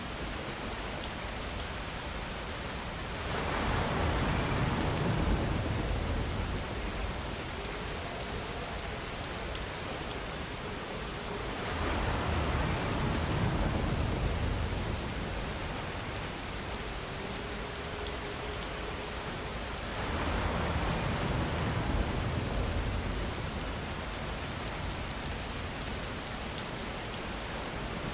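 Steady rain falling, a continuous even hiss, with three louder swells of a few seconds each that rise and fall back.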